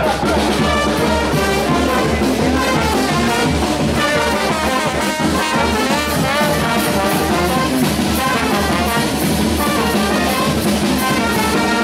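Charanga brass band playing in unison: trumpets and trombones over a sousaphone, with a bass drum and cymbal keeping a steady beat.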